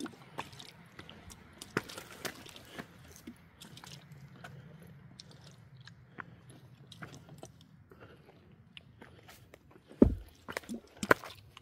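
Footsteps of a hiker on a rocky trail: irregular clicks and scuffs of boots on loose rock. About ten seconds in comes a loud thump, followed by a few louder knocks.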